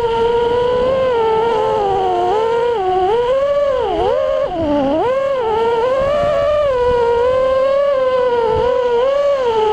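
Brushless motors of a 3S FPV quadcopter (2206 2400kv motors with DAL 5045 props) heard from its onboard camera: a steady whine whose pitch rises and falls with the throttle. The pitch dips sharply twice about four to five seconds in, then climbs back.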